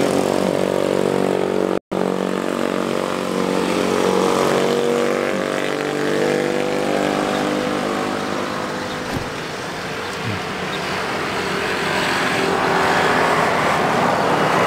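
Motor vehicle engine drone from passing traffic, a steady hum whose pitch slowly sinks and rises again, with a brief dropout about two seconds in.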